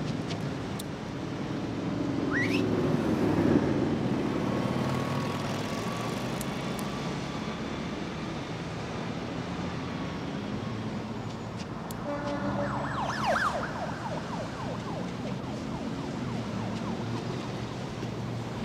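City street traffic noise, with a rising siren-like whine about two to three seconds in and a cluster of short rising chirps around thirteen seconds.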